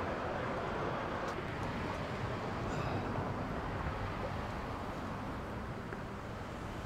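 Steady urban street ambience: a low, even hum of distant traffic.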